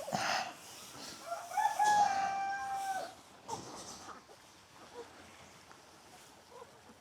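A rooster crowing once, starting about a second in: a single drawn-out call lasting about a second and a half, rising briefly then held level.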